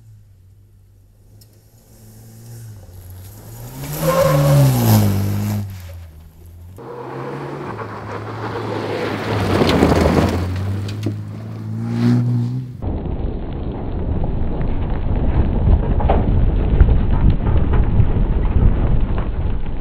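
Bowler Defender 90 rally car's 2.0-litre turbocharged four-cylinder petrol engine revving up hard as it passes on a loose gravel track, with gravel spraying from the tyres. The sound cuts between several passes, rising in pitch twice, and ends in a steady low rumble without the engine note.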